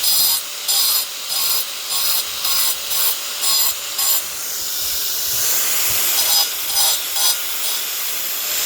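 A hand tool worked back and forth in rhythmic scraping strokes, about two a second. About four seconds in, the strokes give way to a steadier rasp for a couple of seconds, and then they start again.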